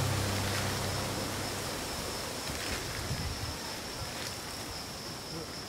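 Background music fading out within the first second, leaving outdoor woodland ambience: a steady hiss of air with a thin, steady high-pitched tone and a few faint ticks.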